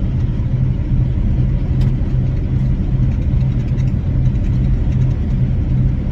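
Semi truck's diesel engine and tyres droning steadily inside the cab while cruising at speed on a wet road.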